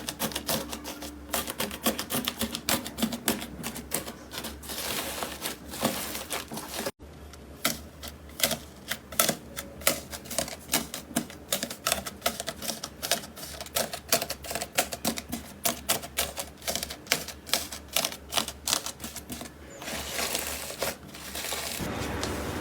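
Slime being squeezed and pressed by hand, giving dense, rapid crackling clicks and pops. A sudden break about seven seconds in, where one slime clip cuts to another.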